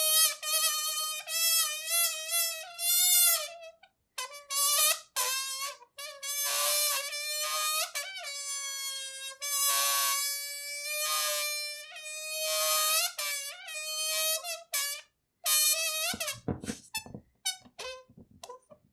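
Balloon squeaking in long, wavering, high-pitched squeals with short breaks between them. Near the end these give way to short, choppy rubbing squeaks.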